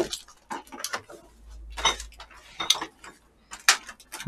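Tableware being handled: scattered clicks and taps of chopsticks against plastic takeout trays and a small plastic sauce cup.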